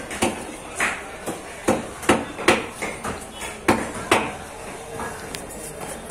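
Heavy fish-cutting knife striking a wooden chopping block as a large trevally is cut up: a series of sharp, irregular knocks, most of them in the first four seconds or so, then fewer.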